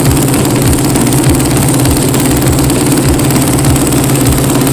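Sport ATV engine with twin aftermarket exhaust pipes idling, loud and steady.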